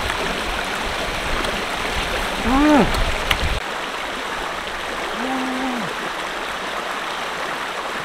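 Shallow stream rushing over rocks, a steady water noise, with the deep part of it dropping away about three and a half seconds in. A man's voice makes two short hum-like sounds over it, the first about two and a half seconds in, the second a couple of seconds later.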